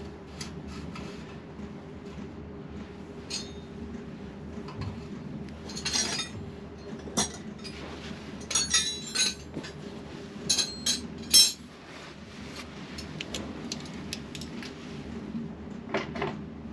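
Metal hand tools and parts clinking and knocking against metal in an irregular string of sharp clinks, busiest midway, with the loudest knock about eleven seconds in.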